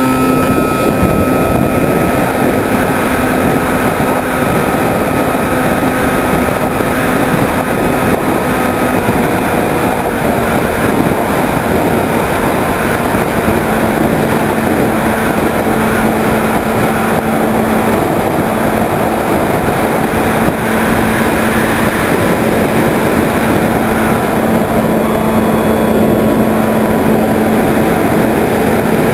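Onboard sound of a Skyhunter 1.8 m RC plane in flight: its electric motor and pusher propeller running with a steady drone, mixed with wind rushing over the camera. The drone's pitch settles slightly lower about halfway through.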